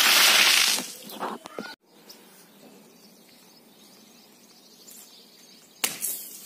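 A bucketful of water splashes down in a loud rush that dies away after about a second. About six seconds in, a water balloon bursts with a single sharp slap on a concrete floor.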